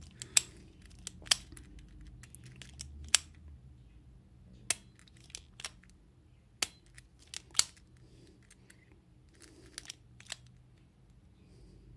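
Diabetic blood-lancing pen clicking: about a dozen sharp, separate clicks at uneven intervals as it is cocked and fired against the forearm to prick the skin and draw blood.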